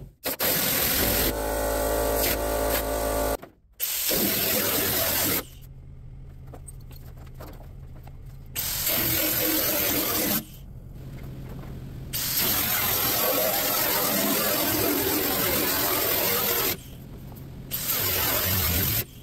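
Grinder with a cutoff wheel cutting through the sheet-steel cab roof, in about five loud stretches of a few seconds each, with a quieter steady running sound between them.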